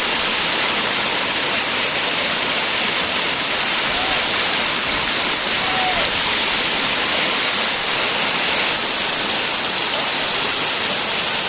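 Damtua waterfall's water rushing down in a steady, unbroken hiss of noise, heavy in the highs and light in the bass.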